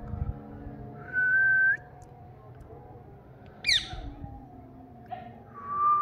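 Two long, level whistles, each turning upward at its end, about a second in and again near the end, with a short, sharp, falling chirp from an Indian ringneck parakeet between them.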